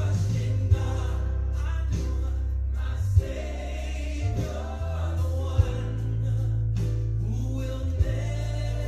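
Background music: a song with singing over sustained low bass notes.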